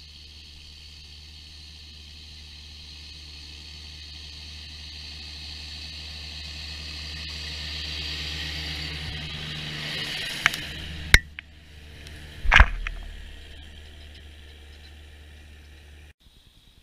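John Deere 6920 tractor's six-cylinder diesel running under load while ploughing, growing louder as it approaches and passes close by. Three sharp knocks as it goes past, the last one the loudest.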